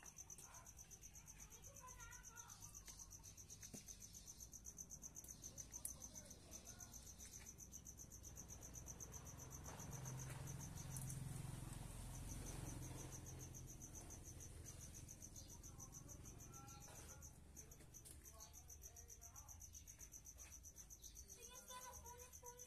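Faint, steady high-pitched chirring of crickets, a fast unbroken trill. A faint low rumble swells and fades around the middle.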